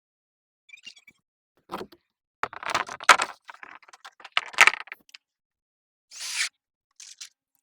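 Roofing work in progress, with rattling clatter and knocks from handling the roof materials, likely the corrugated PVC roofing panels. A faint jingle, a single thump, a burst of clattering with two hard knocks, then a short scraping swish near the end.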